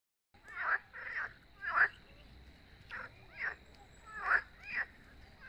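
Frogs croaking from the lake: a series of short, rasping calls repeated about every half second to a second.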